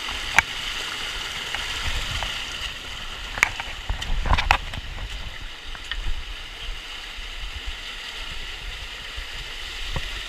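Shallow river water rushing and sloshing steadily, with a few sharp knocks, three of them standing out in the first half.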